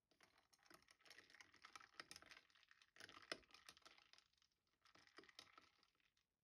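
A metal spoon stirring iced coffee in a ribbed glass, clinking rapidly against the ice cubes and the glass. There is a short pause about three-quarters through, then the stirring resumes briefly.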